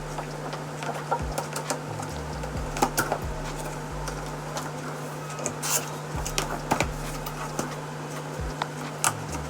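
Cardboard box and packaging being pulled open by hand, with scattered crinkles, scrapes and taps over a steady low hum.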